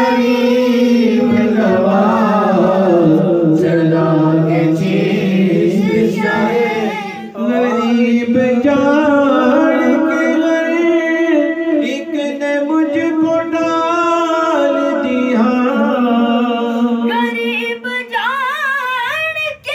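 Male voice singing an unaccompanied Urdu devotional manqabat, holding long drawn-out notes with no clear words, breaking into quicker ornamented runs near the end.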